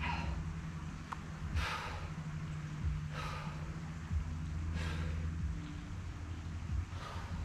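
A man breathing hard through ring dips, with a sharp, forceful exhale about every second and a half, over a steady low hum.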